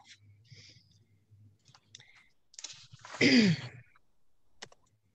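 Faint scattered clicks, and about three seconds in a short, breathy human vocal sound that falls in pitch, the loudest sound here.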